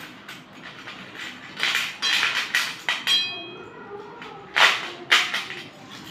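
Slate pencils clattering against each other and knocking on a steel plate as they are handled, in quick runs of clicks. A short metallic ring from the plate comes about three seconds in, and the two loudest knocks fall close together past the middle.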